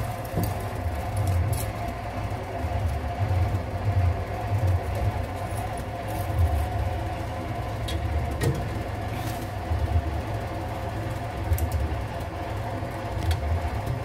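Carburetted petrol engine of a 1999 Toyota Kijang LGX running, heard from beneath the car, with an uneven low throbbing from an exhaust pipe that has broken apart from corrosion. A few light clicks come from hands on the pipe.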